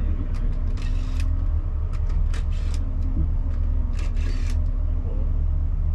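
Car engine running with a steady low rumble, broken by a few short hissy bursts.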